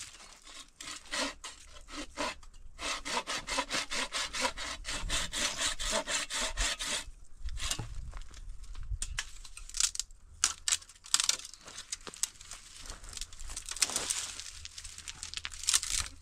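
Hand saw cutting through a tree branch: a fast, even run of strokes, about five a second, for a few seconds, then slower, uneven strokes.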